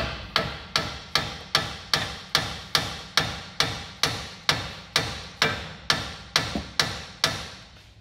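Hammer striking the steel steering knuckle arm in a quick, even series of light blows, about two and a half a second, each ringing briefly, to shock loose the tapered stud of the outer tie rod end.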